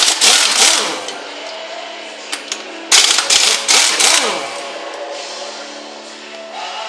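Impact wrench rattling in two bursts, one at the start and a longer one about three seconds in, as it undoes the flywheel bolts.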